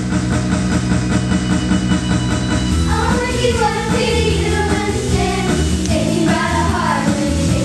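Upbeat pop music with a steady bass line, played for a dance routine; singing comes in about three seconds in, in short phrases.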